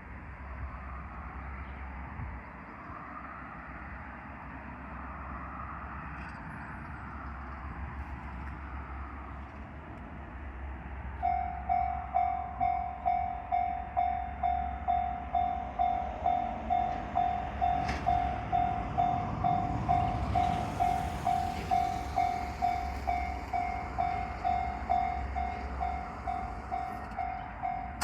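Level crossing warning bell starting about eleven seconds in and ringing at about two strikes a second, the signal that a train is approaching. Before it there is a steady background rumble, and a broad rise in noise joins the bell in the second half.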